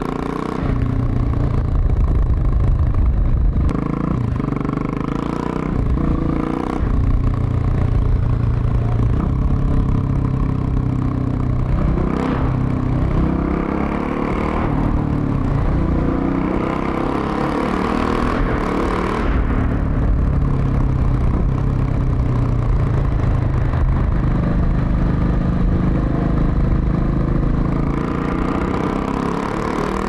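KTM 690 SMC R's 690 cc single-cylinder engine through a Leovince SBK exhaust, under way on the road, its pitch rising and dropping several times as the rider accelerates and shifts gears, over steady wind and road rush. In the second half the bike is inside a road tunnel.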